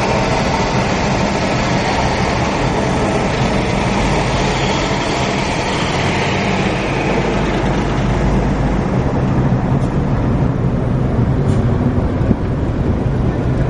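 Steady travel noise from inside a moving vehicle: a continuous rumble with a low hum, and a faint high tone that rises and then falls in the middle.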